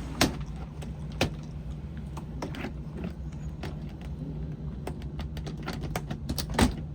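Scattered clicks and knocks of small tools and equipment being handled over a steady low mechanical hum. The sharpest knocks come about a quarter second in, about a second in, and near the end.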